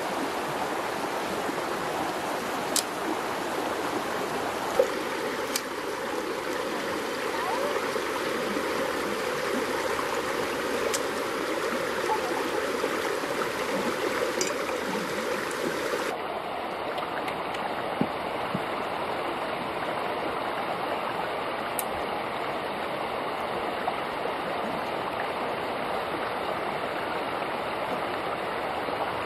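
Steady rush of flowing water, like a stream, with a few faint sharp clicks; the sound shifts abruptly a little past halfway.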